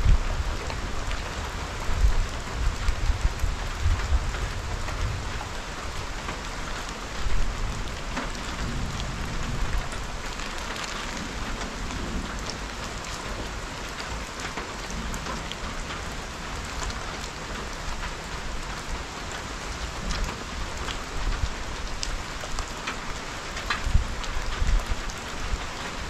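Steady rain falling, with many small drops ticking. Low rumbling comes in during the first few seconds and again near the end.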